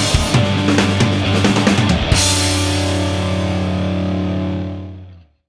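Rock music with drums and guitar, ending on one held chord about two seconds in that dies away and cuts to silence about five seconds in.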